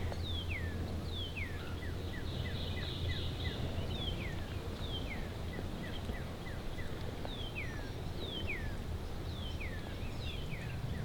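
Wild songbird singing outdoors: pairs of clear whistles that slide downward, each followed by a quick run of short falling notes, repeated several times. A steady low rumble runs underneath.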